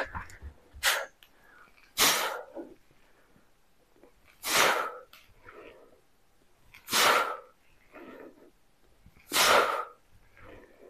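A man's forceful breaths out through the mouth, one with each press of a seated dumbbell shoulder press. Four loud, sharp breaths come about every two and a half seconds, with a shorter one near the start.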